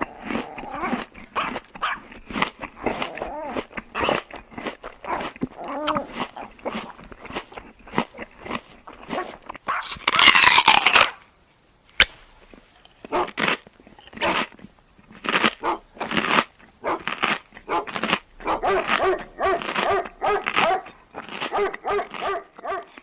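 A dog barking and whining, mixed with many short clicks and crunches. A loud, harsh call comes about ten seconds in, and a quick run of short repeated calls near the end.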